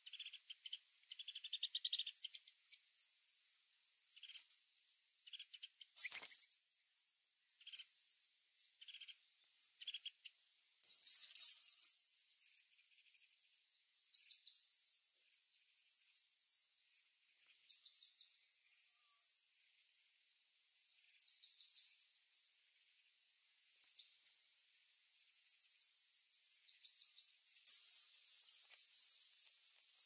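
Red-whiskered bulbul nestlings begging at the nest while being fed: thin, high chirps in short rapid trains every few seconds. A sharp rustle comes about six seconds in, and a steady hiss rises near the end.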